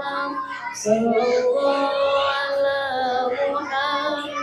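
A class of schoolchildren singing a song together.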